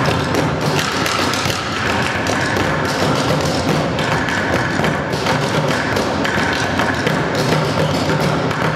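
Percussion ensemble drumming on large plastic barrels and plastic buckets: a dense, fast, continuous rhythm of many overlapping strokes, with deep thuds from the barrels and sharper taps on top.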